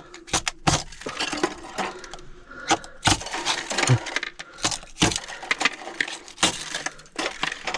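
Small plastic scraper chipping and scraping at hard built-up ice inside a refrigerator's freezer compartment: an irregular run of sharp knocks and scrapes. The ice is so hard that the scraper barely gets through it.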